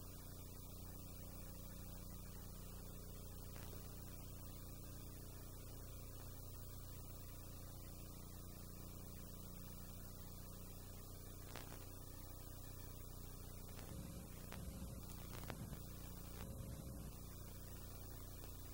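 Faint steady electrical hum and tape hiss from an old VHS tape playback, with a few faint clicks and crackles in the second half.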